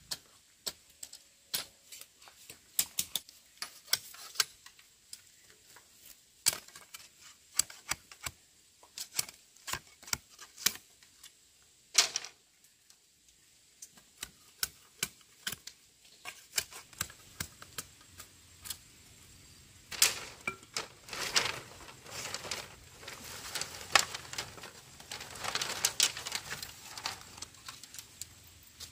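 Irregular sharp taps and knocks, scattered at first and coming thick and fast for several seconds after about twenty seconds in.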